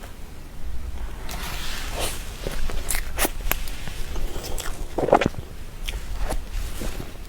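Close-miked eating sounds: wet mouth clicks and smacks, irregularly spaced, while chewing soft cream cake, with a louder mouth sound about five seconds in.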